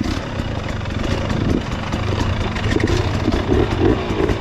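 Trail motorcycle engine running as the bike pulls away over a rocky trail, with the engine note pulsing in the second half and many short knocks and rattles over it.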